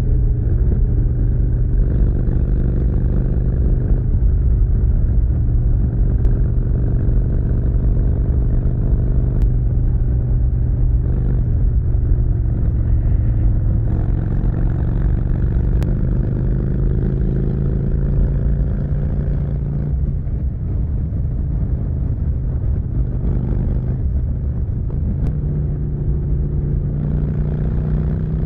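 Harley-Davidson V-twin with a Vance & Hines Big Radius exhaust running at highway speed from the rider's seat, a steady low exhaust note. The revs climb slowly through the middle, ease off, then step up near the end.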